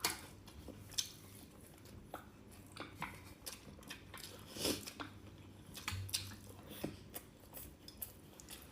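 Someone chewing and biting food, with irregular small clicks and taps of dishes and cutlery.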